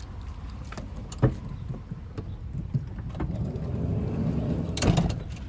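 Minivan side door being opened: a sharp click about a second in, then a rumbling slide that builds to a loud clunk near the end.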